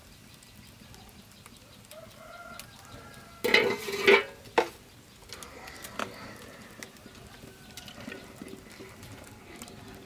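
Farm poultry calling: a loud, harsh call about three and a half seconds in, a short one half a second later, then fainter calls.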